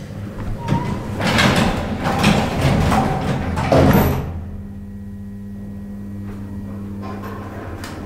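Freight-passenger elevator's sliding doors rumbling shut, stopping with a bump about four seconds in. A short high beep follows, then a steady low electric hum from the elevator's drive.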